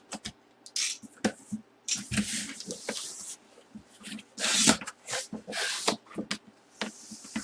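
Cardboard packaging being handled and opened: irregular rustling and scraping swishes with several sharp knocks and clicks.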